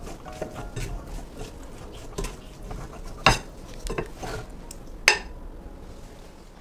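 Metal spatula scraping and clinking against a frying pan while stirring garlic fried rice, with two sharp knocks, one about three seconds in and one about five seconds in.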